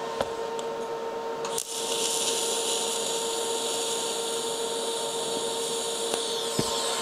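TIG welding arc tacking a steel sprocket to its shaft. The arc strikes suddenly about one and a half seconds in with a steady high hiss, holds for about four and a half seconds, and dies away near the end, over a steady low hum.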